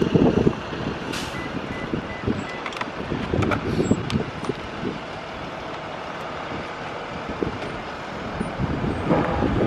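Diesel school buses running as they pull out and drive along the street, a steady engine rumble that grows louder near the end.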